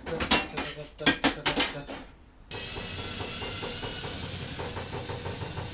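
Metal tools and parts clinking and clattering for a couple of seconds. Then, about two and a half seconds in, a small motor starts and runs steadily.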